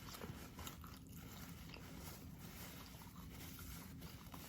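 Faint chewing of food, with soft, scattered mouth clicks.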